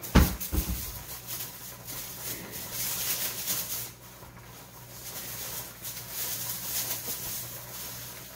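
Two thumps just after the start, then crinkling and rustling of a clear disposable plastic glove being handled and pulled on. The crinkling comes in two spells, near the middle and again toward the end.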